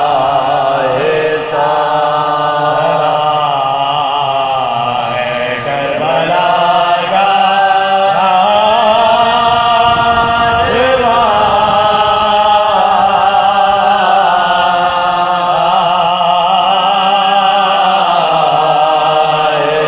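Men chanting soz, the Shia Urdu lament for Imam Hussain, in long held notes that waver and bend, unaccompanied by instruments.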